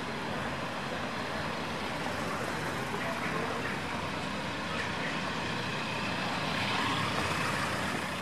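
Busy street ambience: steady road traffic noise.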